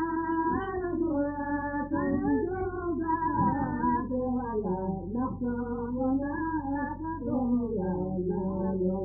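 A voice chanting a mawlid praise song, in long sustained notes that glide up and down without a break.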